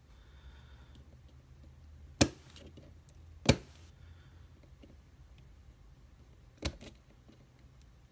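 Three sharp clicks or knocks of a hand tool working on an Abus E20 padlock as it is being taken apart, about two, three and a half, and nearly seven seconds in, over a low steady hum.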